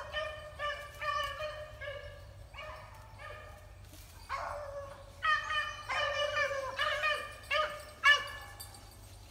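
Rabbit-hunting beagles baying while running a rabbit: a string of short, pitched barks about two a second, easing off briefly in the middle, then coming louder and thicker for the second half.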